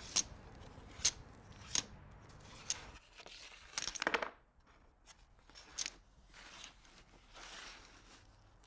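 Faint domino tiles clacking on a table: single sharp clicks about once a second, with a short rattle of quick clacks about four seconds in.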